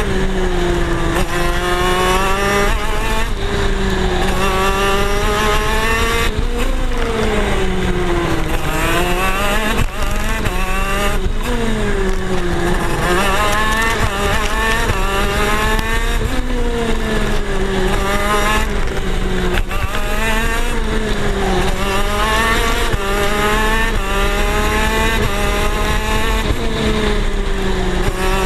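A KZ shifter kart's 125cc two-stroke engine, heard from onboard, running hard at racing speed. Its pitch climbs and then drops back again and again.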